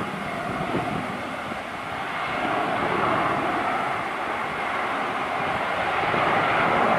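Jet airliner's engines, a steady rush that grows louder toward the end as the aircraft moves along the runway.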